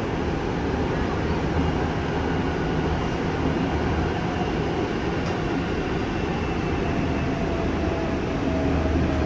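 Busan Metro 1000-series subway car running between stations, heard from inside the car: a steady rumble of wheels on rail with a faint whine from its Toshiba permanent-magnet traction motors. The whine sinks slightly in pitch in the second half.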